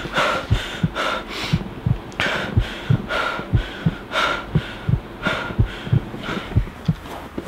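A heartbeat thumping in lub-dub pairs at a steady pace of about one a second, with quick breathing over it.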